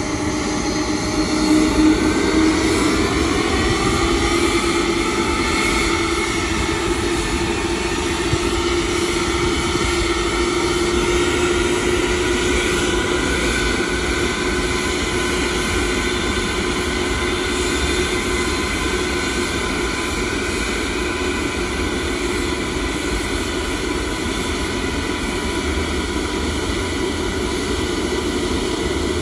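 Boeing 747-400 Dreamlifter's four jet engines whining at taxi power: a steady mix of held tones over a rumble, with some of the tones rising in pitch over the first few seconds.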